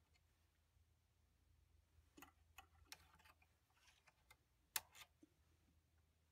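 Faint, scattered light clicks of the turned bloodwood pen blanks and metal bushings being slid off the lathe's pen mandrel, the sharpest click nearly five seconds in. A faint low hum runs underneath.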